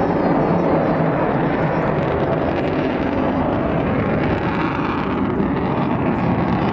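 Avro Vulcan bomber's jet engines running in a steady, loud roar as it flies a display.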